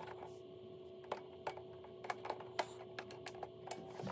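Light, irregular clicks and taps of hard plastic parts of a HISS tank toy being handled and fitted, about ten in all.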